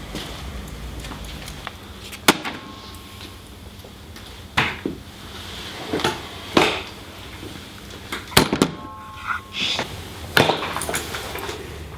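A series of sharp knocks and clunks, irregularly spaced a second or two apart, as objects are handled and set down hard on a table, over a low steady hum.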